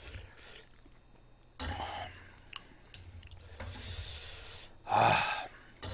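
Eating sounds of a person having spicy jjamppong ramen: a few short slurps and hissing breaths, the loudest about five seconds in.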